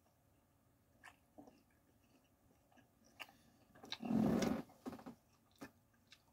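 A person chewing a bite of a crispy chicken wrap with the mouth closed: faint, scattered wet clicks and smacks. About four seconds in comes one brief, much louder rush of noise.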